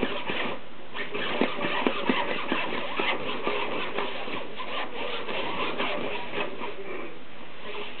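A cat kneading and pawing at the fabric lining of a play tunnel: a steady scratchy rustle of the material with quick clicks of claws catching it, thickest in the first few seconds.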